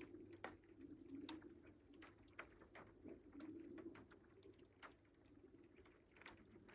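Faint lake ice singing as it breaks up in spring: low hollow moans swell and fade over and over, and sharp ticking cracks fall about twice a second at irregular moments.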